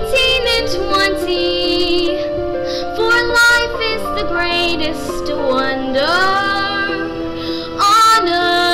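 A young girl singing through a microphone and PA over backing music, with long held notes and bending pitch.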